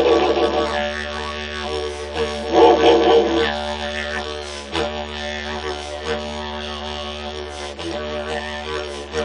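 Handmade split didgeridoo played as a continuous low drone with a rich stack of overtones. It swells louder with shifting overtones at the start and again about three seconds in, with brief dips in the drone around five and eight seconds in.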